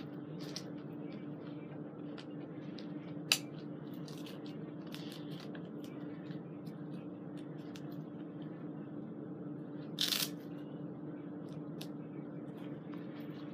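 Airsoft gear being put on: straps and plastic buckles handled, with a sharp click about three seconds in and a brief rustle about ten seconds in, over a steady low hum.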